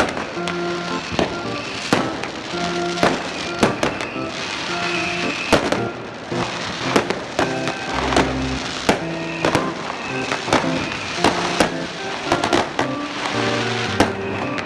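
New Year's fireworks going off, a steady run of irregular bangs and crackles, under background music of held notes that change every second or so.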